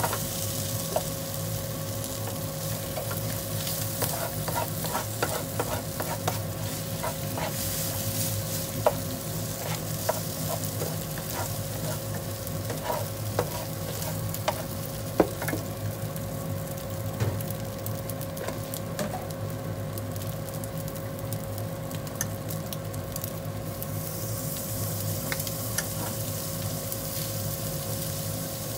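Fried rice with cabbage, komatsuna and egg sizzling in a nonstick frying pan while it is stirred and turned, the utensil scraping and tapping against the pan. The sharpest taps come about 9 and 15 seconds in, over a steady hum.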